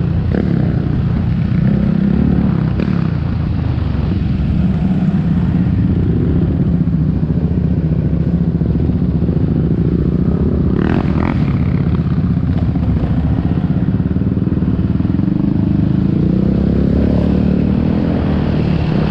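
Yamaha Raptor 700R quad's single-cylinder four-stroke engine running steadily at trail-riding speed, picking up slightly near the end, with a few short rattles about eleven seconds in.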